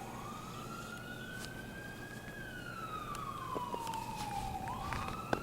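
Emergency-vehicle siren wailing in a slow cycle. Its pitch rises for about two seconds, falls for about two seconds, and starts rising again near the end.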